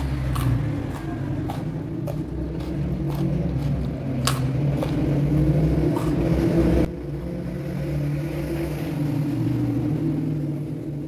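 Close-miked chewing of food: a continuous low sound broken by a few sharp crunches, the loudest about four seconds in.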